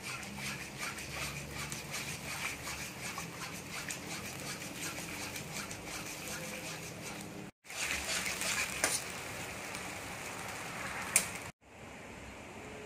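Soy-sauce mixture bubbling and sizzling in a carbon-steel wok while a metal ladle stirs and scrapes through it, with dense small crackles throughout and a couple of sharp clicks of the ladle on the wok. Near the end a steady even hiss takes over.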